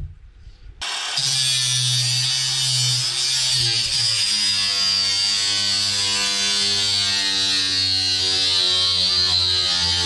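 A small electric power tool starts about a second in and runs steadily with a high whine.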